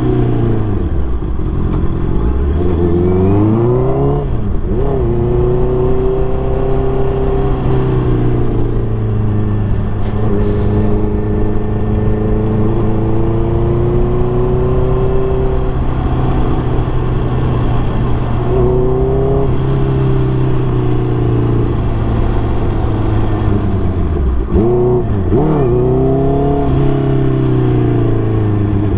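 Honda CBR650R inline-four motorcycle engine, fitted with a MIVV MK3 full exhaust system, being ridden. The revs fall near the start, climb again through gear changes a few seconds in, and hold steady at cruise; near the end they drop and rise again with quick revs.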